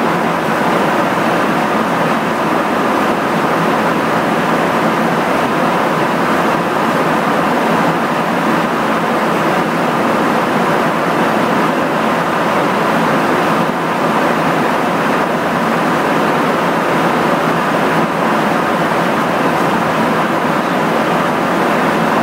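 Steady rush of in-flight cabin noise inside a KC-135 tanker: airflow and engine noise blended into an even, unbroken roar with no distinct tones.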